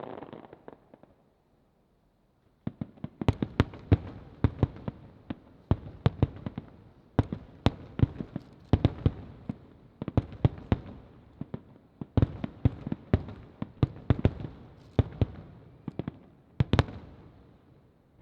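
Fireworks display: after a brief lull, a rapid barrage of aerial shell bursts sets in a little over two seconds in, dozens of sharp bangs in quick irregular succession, each trailing off in reverberation, which die away near the end.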